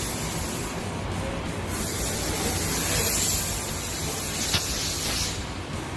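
Steady hiss of background noise, with a single sharp click about four and a half seconds in.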